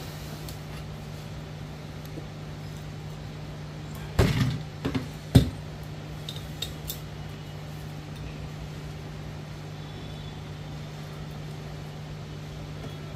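Steady low hum with a short cluster of clicks and knocks about four seconds in, the sharpest a second later: small hard objects handled on a repair workbench.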